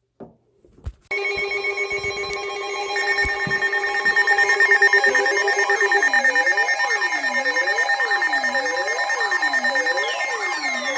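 Electronic emergency alert tones layered together: about a second in, a steady chord of several tones with a fast flutter starts, a further high tone joins about three seconds in, and from about five seconds a siren-like tone sweeps up and down roughly once a second.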